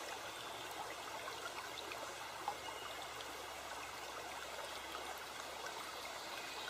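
Faint, steady rushing of running water, like a stream, with one short click about two and a half seconds in.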